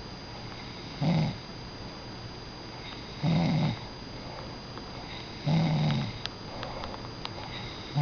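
A sleeping pet snoring: three short, low snores about two seconds apart, each lasting about half a second.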